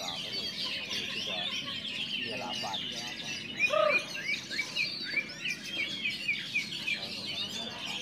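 Many caged oriental magpie-robins (kacer) singing at once in a song contest: a dense chorus of fast, high, varied chirps and whistles. About halfway through, a brief louder, lower-pitched call rises over the chorus.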